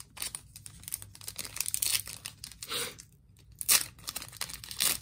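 Foil wrapper of a Panini Chronicles football card pack crinkling and being torn open by hand, a run of crackles and rips with a short lull about three seconds in.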